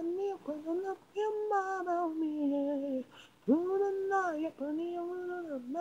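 Unaccompanied lead vocal of a J-pop anime theme song: a single voice singing held, sliding notes in phrases, with a short break about three seconds in.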